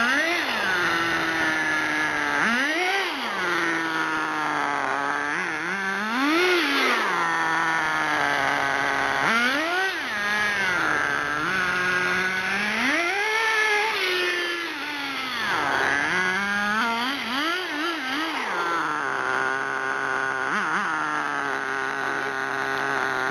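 Ported .18 two-stroke nitro engine in an RC buggy, revving up and falling back again and again as the buggy is driven, then running at a steady idle over the last few seconds.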